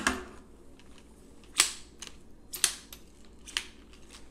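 Shock-corded aluminum pole sections of a Helinox Chair Zero frame clicking together as they are fitted to the hub: four sharp clicks about a second apart.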